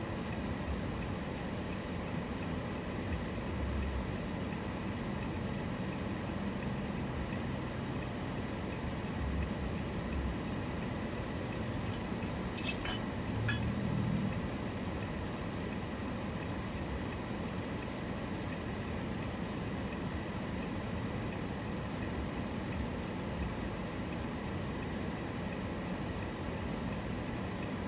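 Steady road and engine noise inside a moving car's cabin, with a short cluster of light clicks about halfway through.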